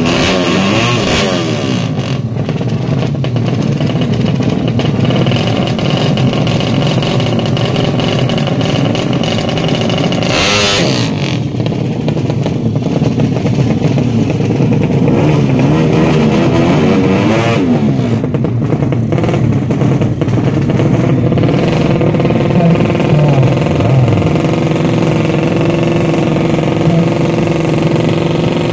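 Drag-racing motorcycle engine running loudly at the start line, revving up and down several times, with sharp rev swells about 10 and 17 seconds in. In the last several seconds it holds a steadier, higher pitch.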